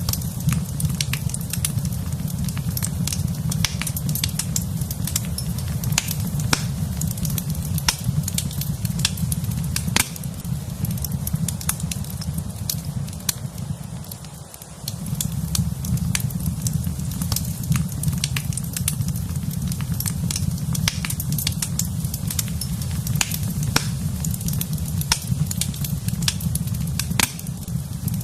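Fire burning in a fireplace: a steady low rumble of flames with frequent sharp crackles and pops of burning wood. The low rumble drops away briefly about halfway through, then returns.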